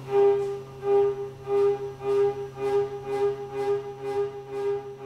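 Background music: a single pitched note repeated about twice a second, each stroke slowly fading.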